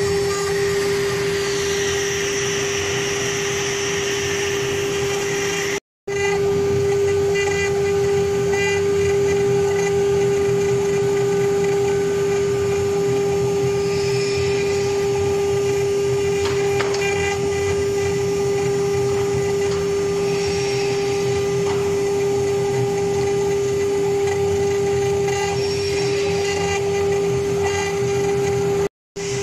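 Spindles of a small CNC router engraving MDF board, running with a steady whine over the rasp of the cutting bits. The sound drops out briefly twice, about six seconds in and near the end.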